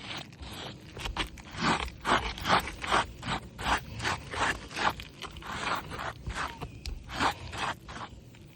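Repeated gritty scraping against asphalt roof shingles, a series of short strokes about two or three a second.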